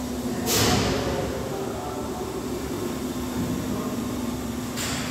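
Steady hum of factory machinery with a held low tone, broken by two short hisses, one about half a second in and one near the end.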